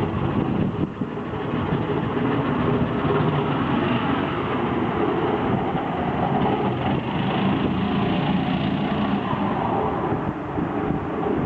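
10 hp air-cooled engine of a small KJet 134 jet boat running steadily at speed.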